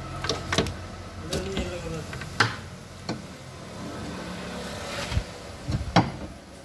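Scattered sharp knocks and clanks, a handful of separate strikes. The loudest come about two and a half seconds in and near the end.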